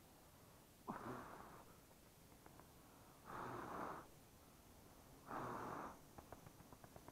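Three short puffs of breath blown on a smoking torch, each under a second and spaced about two seconds apart, fanning smoke onto a wild bee comb. Faint light ticks follow near the end.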